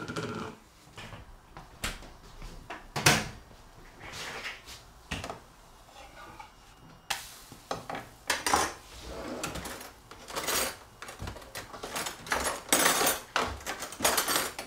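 Kitchen clatter: dishes, a frying pan and cutlery knocking and clinking in a run of sharp clicks. About halfway through, a steady hiss joins in from a pancake frying in the pan.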